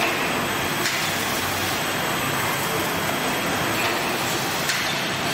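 Toilet-roll packaging machinery (wrapper and bundler) running in a factory hall: a loud, steady mechanical noise with a few faint sharp clicks.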